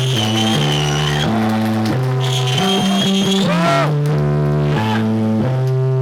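A desert rock band playing live, instrumental. Bass guitar holds long low notes that change step by step under electric guitar, which sustains high, wavering notes and bends sweepingly in pitch about halfway through.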